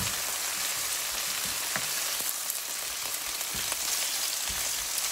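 Pork tenderloin slices frying in hot oil in a skillet: a steady sizzle with fine crackling spatters. A few soft knocks come as the slices are turned with metal tongs.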